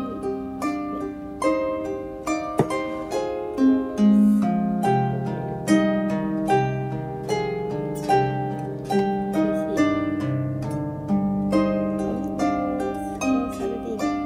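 Background harp music: a flowing melody of plucked notes over lower sustained bass notes.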